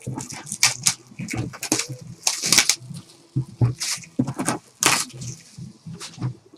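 Crinkling and rustling of trading card packaging and cards being handled and opened: a run of short, irregular crackles and snaps.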